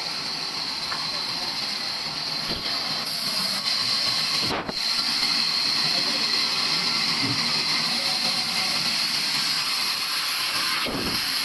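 Sawmill saw cutting through an old wooden beam: a loud, steady, high-pitched hiss, with a brief dip in loudness about halfway through.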